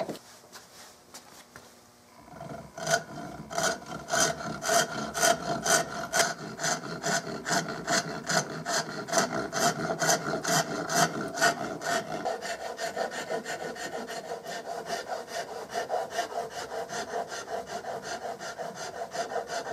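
Hand file cutting into a walnut gunstock in rhythmic, evenly spaced push strokes, shaping the pistol grip. The filing starts about two and a half seconds in and grows a little softer in the second half.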